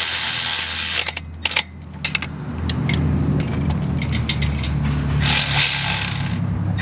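Light metallic clicks from a valve-spring compressor and hand tools working on an LS V8's valve spring, over a low steady hum, with bursts of hiss in the first second and again about five seconds in.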